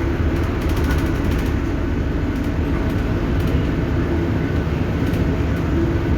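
Steady low rumble of a moving vehicle, heard from inside.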